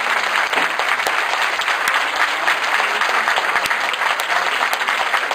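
Audience applauding, dense and steady.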